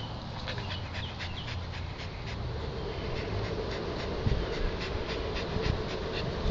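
A dog panting rapidly, a quick even run of short breaths. A steady low buzz joins in about two and a half seconds in, with a few dull low thumps near the end.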